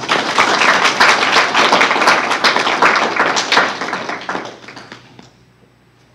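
Audience applauding. It starts abruptly, holds for about four seconds, then tapers off and stops about five seconds in.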